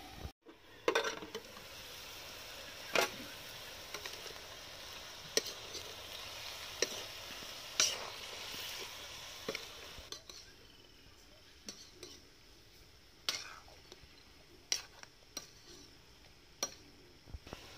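Pork pieces sizzling in a metal wok over a wood fire while a metal spoon stirs them, clinking and scraping against the pan every second or two. The sizzle fades about ten seconds in, and the spoon knocks carry on.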